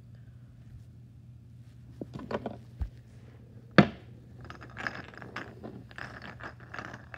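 Chess pieces being handled on a board, with a few light clicks and one sharp knock just before four seconds in as a piece is set down or strikes another, followed by scraping and rustling of the pieces and the recording phone. A low hum runs underneath.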